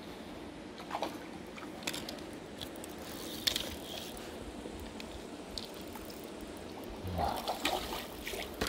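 Mountain river water running over rocks, a steady trickling rush, with a few brief sharp sounds and louder, busier sounds near the end.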